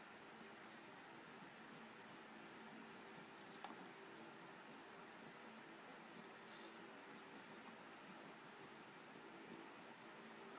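Prismacolor coloured pencil scratching faintly on UArt sanded paper in quick runs of short strokes, with one sharper tick a little over three and a half seconds in. A steady faint hum lies beneath.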